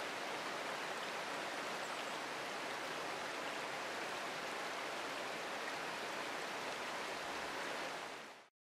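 Flowing water of a rocky mountain stream, a steady rush of riffles over boulders, which fades out quickly near the end.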